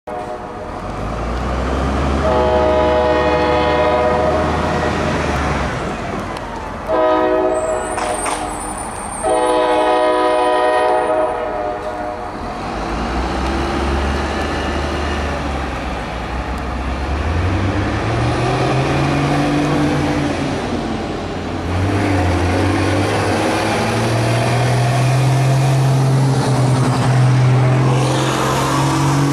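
Approaching diesel locomotive horn blowing three blasts, the middle one shorter. After the horn, the locomotive engines drone and step up twice in pitch as the train pulls closer under power.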